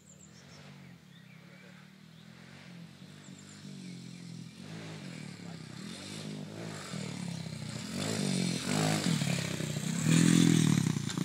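Small motorbike engine revving up and easing off again and again as it rides over dirt jumps, growing steadily louder as it approaches and loudest as it passes close by near the end.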